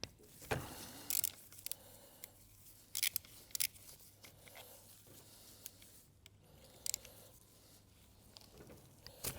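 Small metal parts and hand tools being handled on a workbench: a few scattered light clicks and rattles, during the strip-down of an oil pump.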